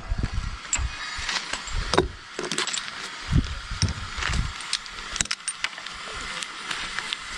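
Tree-climbing hardware clinking and gear rustling against bark and branches as a climber handles a lanyard: a string of sharp clicks and knocks over low rumbling thumps.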